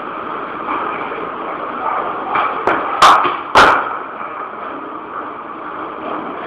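Steady background hiss, broken about three seconds in by two loud sharp knocks about half a second apart, with a couple of lighter taps just before them.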